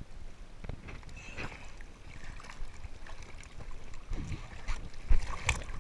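Sea water sloshing and splashing around a GoPro held at the surface in choppy water, with low buffeting thuds as waves wash against the camera, growing louder after about four seconds.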